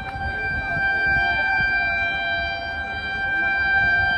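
Electric locomotive horn sounding one long, steady blast of several tones as the train approaches.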